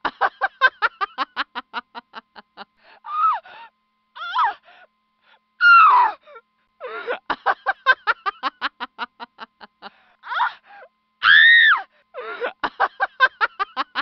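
A comic novelty ringtone built from a woman's voice: short gasps and shrieks, each followed by a rapid stuttering run that fades out, repeated over and over.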